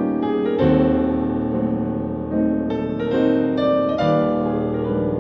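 Piano music accompanying a silent film: slow sustained chords over a held bass, with new chords struck about two-thirds of a second in and again about every one and a half seconds.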